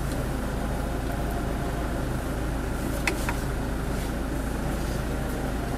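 Car engine idling steadily, with a faint click about three seconds in.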